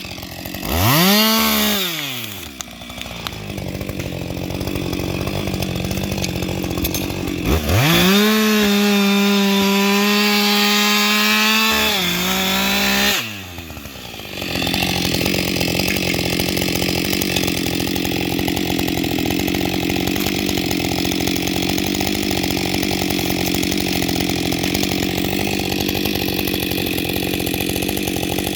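Husqvarna 560XP two-stroke chainsaw revved briefly about a second in, then dropping back. From about eight seconds it is held at full throttle for some four seconds. After a short dip near fourteen seconds it runs steadily under load, the chain cutting into wood.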